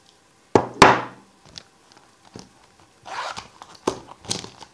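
Close handling noise: two loud thumps about half a second in, then a few small clicks and, near the end, rustling and scraping as makeup items and a cosmetic bag are handled right by the microphone.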